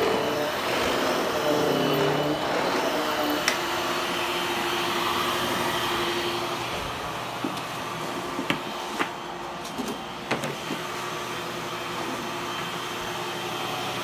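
Hushtone upright vacuum cleaner running on its low power setting as it is pushed over carpet, a steady rushing hum that wavers a little in the first few seconds. A few sharp clicks come in the second half.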